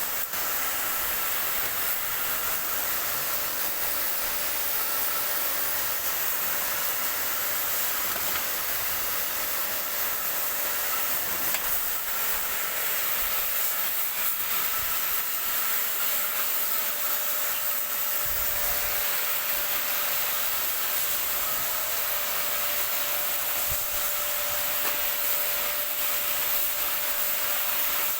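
Water spray hissing steadily while a pen is washed down, with a faint steady hum under it.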